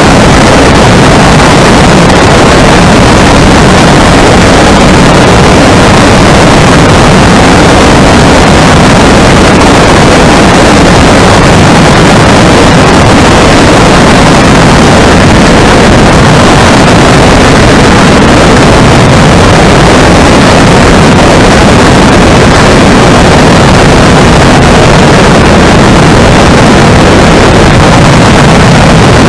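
Fisher Celebrity biplane in flight: its engine running steadily, mixed with heavy wind rush over the wing-mounted camera. The sound is loud and even, with no change in pitch or power.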